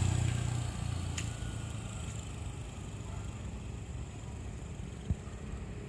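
Bus engine rumbling low as it moves off, fading after the first second into a steady distant drone. A sharp click about a second in and a short thump near the end.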